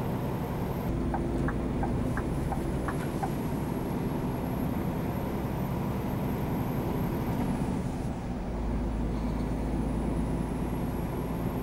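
Scania R440's 13-litre diesel engine running as the truck drives slowly, heard from inside the cab. A few faint clicks come about a second in, and the low rumble grows heavier about eight seconds in.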